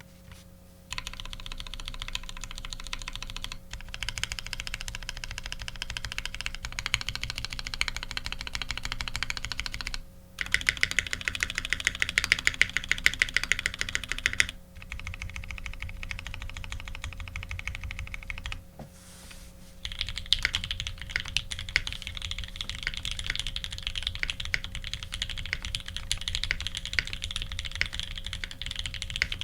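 Typing on a custom F1-8X mechanical keyboard with lubed H1 switches on an aluminium plate and GMK keycaps: a fast, continuous stream of keystrokes broken by a few short pauses, with a louder, denser burst of typing about a third of the way in.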